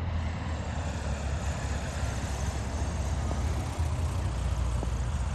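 High-wing single-engine light plane's piston engine and propeller running with a steady drone as the plane passes low over the runway to touch down.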